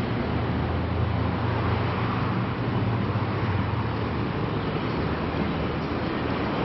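Street traffic noise: motor vehicles running along a busy city road, with a steady low engine hum that weakens about two-thirds of the way through.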